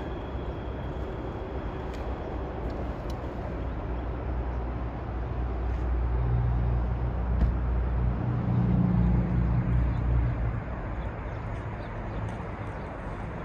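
Low, steady rumble of passing vehicles, with an engine drone that swells from about six seconds in and fades after ten.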